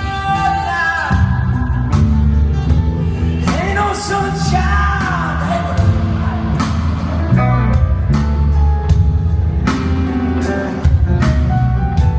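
Live rock band playing through a PA: drums, bass and guitar, with a voice singing in places.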